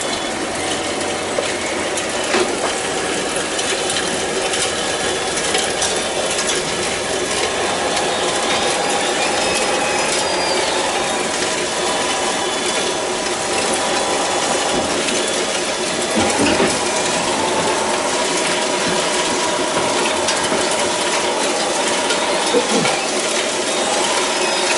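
Radio-controlled scale construction machines working: small electric motors and gears whine and clatter, the whine rising and falling with the load, over a steady run of clicks and clinks.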